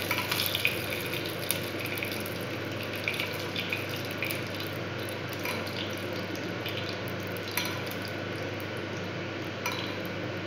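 A metal spoon clinking and scraping in a small steel pan as a wet tempering of mustard seeds and red chillies is scooped out. Light clinks come now and then over a steady low hum.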